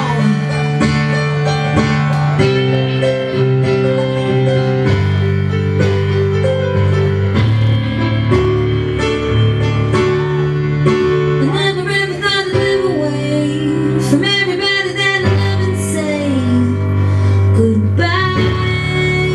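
Recorded song with singing, played loud over a nightclub sound system.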